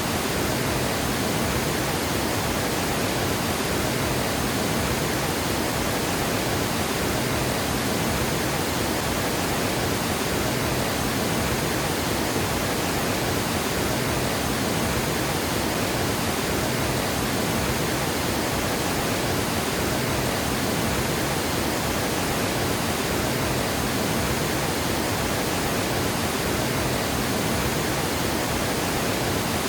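Water gushing over a dam spillway, a steady, unbroken rush of falling water.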